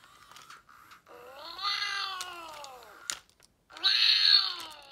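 Electronic voice of a Hasbro FurReal Friends Torch dragon toy playing through its speaker: two drawn-out creature calls that rise and then fall in pitch, the first about two seconds long, the second shorter near the end, with a sharp click between them.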